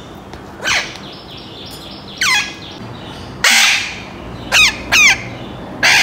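Young Alexandrine parakeet calling loudly: six short calls, each sweeping sharply down in pitch, with one harsher, noisier screech in the middle.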